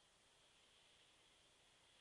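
Near silence: faint steady hiss of a very quiet recording.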